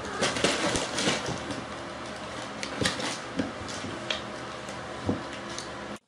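Cats' paws knocking and skittering on a hardwood floor as they chase and wrestle, a string of sharp light thumps over a steady hiss. It cuts off suddenly near the end.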